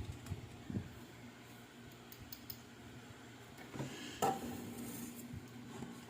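Faint clicks and small handling sounds of hard objects, with one sharper knock about four seconds in, over a faint steady low hum.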